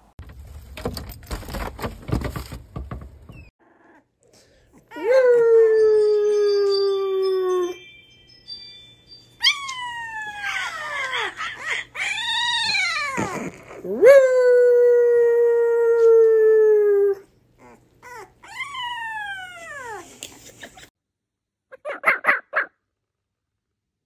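A puppy howling: two long howls that sink slowly in pitch, with shorter calls between them that slide steeply downward. A few seconds of scuffling noise come before it, and a few brief calls near the end.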